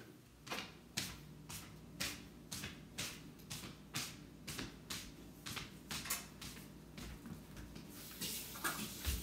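Regular ticking, about two ticks a second, over a faint steady hum. Near the end a hiss rises and there is a low thump.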